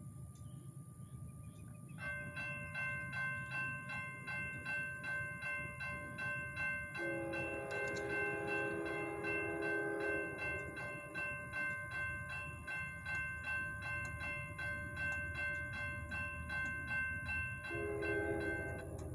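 Railroad crossing bells begin ringing about two seconds in, in steady rapid strokes, as the crossing signals activate and the gates lower for an approaching train. A second, lower-pitched bell joins a few seconds later. Near the end the higher bell stops while the lower one carries on.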